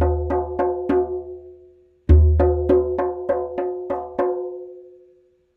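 Tombak (Persian goblet drum) played with bare fingers in a quick, even rhythm of about three strokes a second. Each phrase opens on a deep, booming 'tom' stroke at the centre of the head, followed by sharper, ringing 'bak' strokes near the rim. The playing breaks off briefly about two seconds in, starts again with another deep stroke, and the last stroke rings and fades out near the end.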